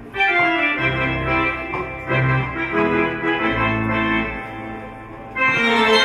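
Held organ chords over a slow-moving bass line, playing the instrumental introduction to a choral hymn. The sound grows fuller and louder near the end.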